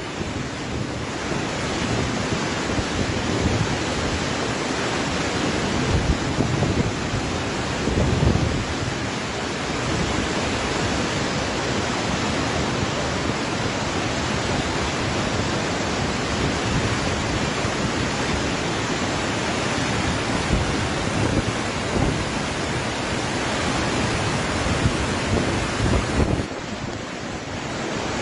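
A muddy flash-flood torrent rushing loudly and steadily through a village, a dense roar of churning water, dipping briefly near the end.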